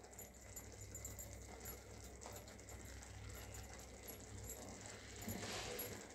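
Faint crackle of thickened sugar syrup simmering with grated amla in a pan, over a steady low hum. Toward the end comes a soft hiss as salt is poured in.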